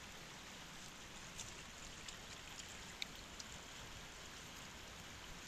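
Steady hiss of flowing river water, with a few faint clicks as pliers work a hook out of a small fish's mouth.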